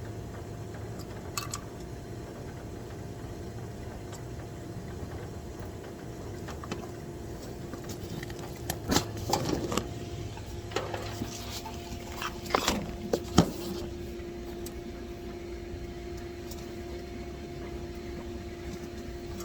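A cluster of metallic clicks and knocks from tools and parts being handled, over a steady hum.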